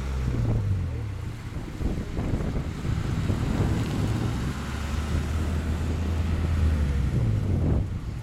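A small coupe driving slowly past, its engine and exhaust a steady low drone that shifts pitch briefly a couple of times, with wind buffeting the microphone.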